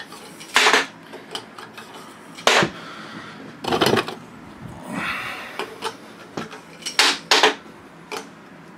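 Plastic rack spacers being dropped and slid onto the support poles of a rodent rack during assembly: a string of separate sharp clacks and clatters, a second or two apart.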